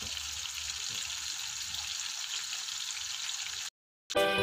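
Banana pieces frying in hot oil in a wok, a steady sizzle. It cuts out shortly before the end, and after a brief silence guitar music starts.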